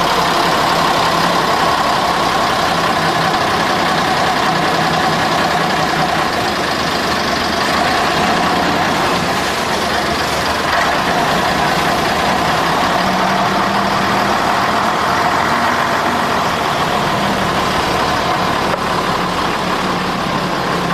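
Long-tail boat engine running steadily under way, over a constant rush of water and wind.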